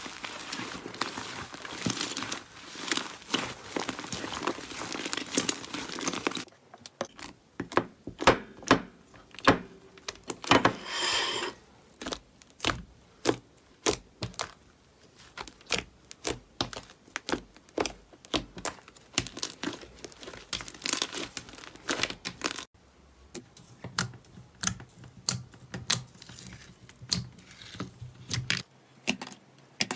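Hands squeezing and pressing slime: a dense run of sticky crackles, pops and clicks. The sound changes abruptly twice, about six and a half and twenty-three seconds in, as one slime clip gives way to another.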